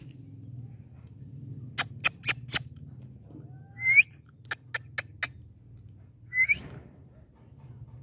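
Indian ringneck parakeet giving two short rising squeaks, with two quick runs of four sharp clicks, the loudest squeak about halfway through. A faint low hum runs underneath.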